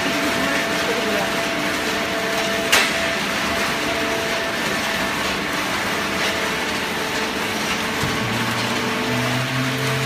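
Steady machinery noise from a horizontal hydraulic baling press, its motor and hydraulic pump running, with one sharp click almost three seconds in. A low steady hum joins about eight seconds in.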